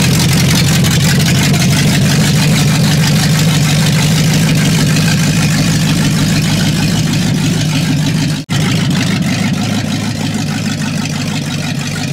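1960 Chevrolet El Camino's engine running steadily on its old exhaust as the car drives out, a strong low hum with hiss over it. The sound breaks off sharply about eight and a half seconds in and comes back a little quieter.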